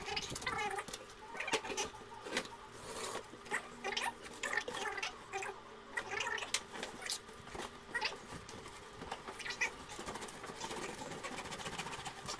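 A large cardboard shipping box being opened by hand: packing tape pulled off, flaps folded back and the inner box dragged out, making irregular scrapes, rustles and brief squeaks of cardboard rubbing on cardboard.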